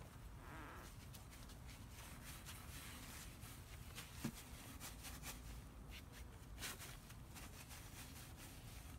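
Faint rubbing and scuffing of a stain-soaked paint mitt wiping along wooden deck spindles, with a couple of light knocks, over a low background rumble.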